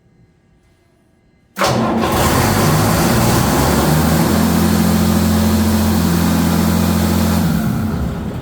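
Doosan 0846 diesel fire-pump engine started on manual start: it fires abruptly about a second and a half in and runs loud and steady, then winds down near the end. It starts and runs normally on this test run.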